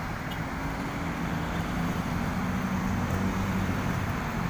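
A moving road vehicle heard from inside: a steady low engine hum over road noise.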